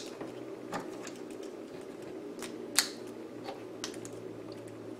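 Clip-on ferrite toroid chokes on a power cable being handled: a few light plastic clicks and taps, over a steady low hum.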